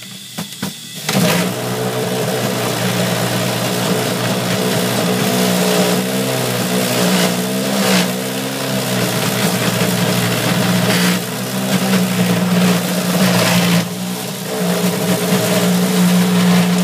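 Electric juicer motor running loud and steady while vegetable pieces are pressed down its feed chute. Its pitch wavers under the load around the middle. It starts about a second in and cuts off just before the end.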